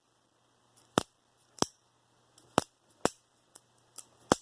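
Sharp metallic clicks of a Benchmade Bugout folding knife's blade being flicked open and snapped shut on its AXIS lock, a series at uneven intervals, the loudest near the end.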